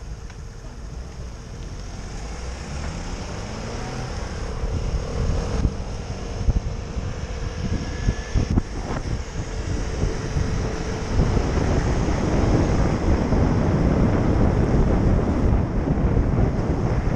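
Wind buffeting a helmet-mounted camera's microphone, growing louder as the bicycle picks up speed from a standstill, over passing road traffic. A steady hum runs for a few seconds in the middle.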